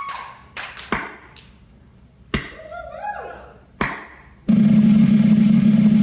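Audience applause thinning out to a few scattered claps, with a voice calling out briefly in the middle. About four and a half seconds in, a loud steady low hum starts abruptly.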